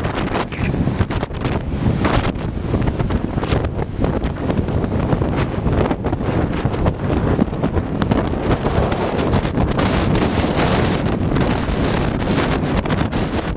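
Storm wind on a lakeshore, loud and continuous, buffeting the camera's microphone in fast, uneven gusts, with lake surf underneath.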